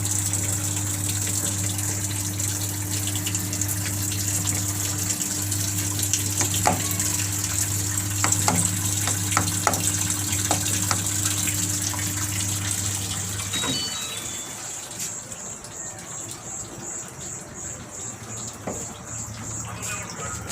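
Water running into the tub of an IFB 6.5 kg top-load washing machine as it fills, with a steady low hum that cuts off about two-thirds of the way through, after which the water sound is quieter.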